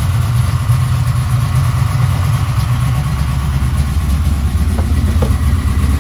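A 383 stroker LT1 V8 idling on an engine test stand. The owners suspect a random misfire behind the occasional exhaust pop.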